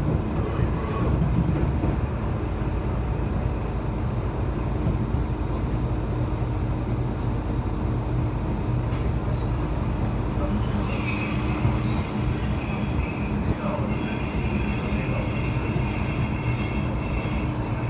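Kanto Railway KiHa 2400 diesel railcar running, with a steady low rumble. About eleven seconds in, a high, steady wheel squeal sets in and holds until near the end.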